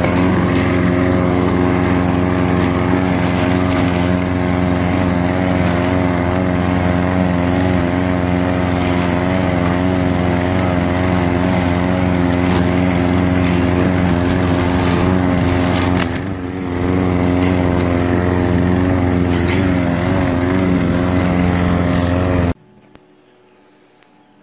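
Walk-behind lawn mower running steadily while mowing grass, with a brief dip in level about 16 seconds in; the sound stops abruptly a couple of seconds before the end.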